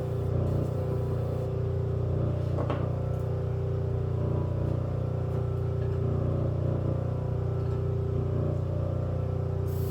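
Electric knife-sharpening machine running with a steady motor hum. A brief brighter scrape comes about a third of the way in, and a hiss comes in just before the end.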